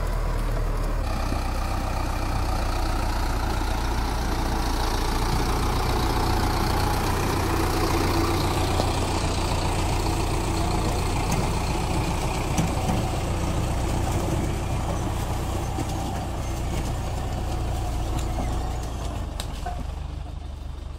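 Diesel engine of a 100-horsepower four-wheel-drive tractor running steadily, a deep drone with mechanical noise over it that eases off a little near the end.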